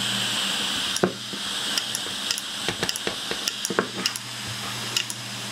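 Uncovered 80GB Samsung IDE hard drive running: the spindle motor and spinning platter give a steady hum and hiss, while the read-write head arm seeks back and forth with irregular sharp clicks. With no operating system on it, the drive keeps seeking over the platter before giving up and spinning down.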